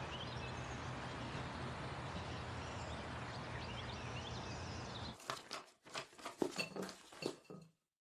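Outdoor ambience: birds chirping over a steady background noise with a low hum. About five seconds in it cuts off abruptly to a few scattered clicks and knocks.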